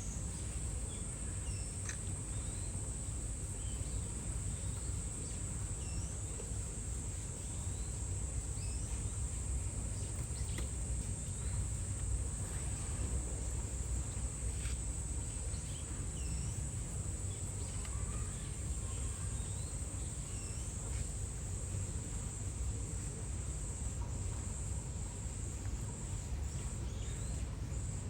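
A steady high-pitched insect drone, as of summer insects, with scattered short bird chirps over a low outdoor rumble.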